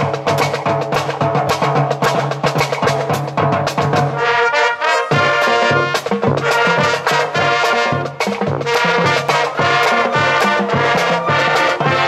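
Upbeat music of brass and drums with a steady beat; the low parts drop out for about a second around four seconds in.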